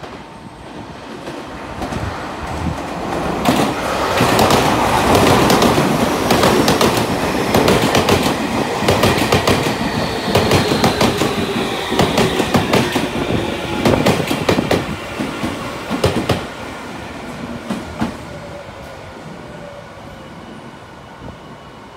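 Yokohama Minatomirai Railway Y500-series electric train running into a station and braking to a stop. Its wheels clatter over the rail joints in a quick run of clicks, loudest in the middle, with a faint whine falling in pitch as it slows. The clatter thins out and stops a few seconds before the end, leaving a quieter hum as the train halts.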